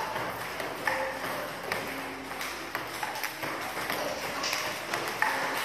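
Table tennis balls in a multiball drill, struck by paddles and bouncing on the table: a quick, irregular run of sharp ticks.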